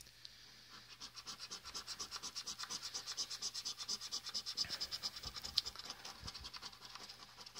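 Scratch-off lottery ticket's coating being scraped off in quick, even back-and-forth strokes, about six or seven a second. The scraping starts about a second in and stops shortly before the end.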